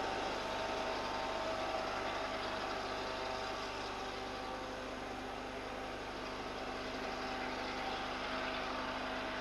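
Diesel-hauled train of M2 coaches running away into the distance, its steady rumble and engine hum easing slightly over the first few seconds.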